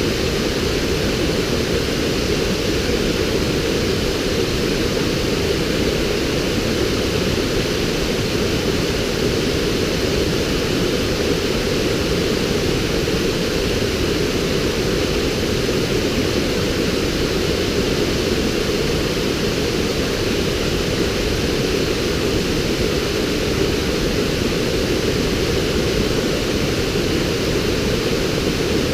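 A river waterfall rushing over rocks, a steady, deep, unbroken rush of water.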